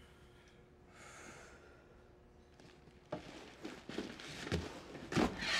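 Quiet room tone with a soft sigh about a second in, then rustling and light knocks of someone moving, growing louder, with a louder breathy burst near the end.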